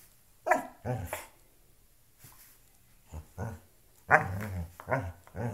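A dog vocalising in play as it mouths and tugs at a shoe: short growly barks in about six bursts, the loudest about half a second in and about four seconds in.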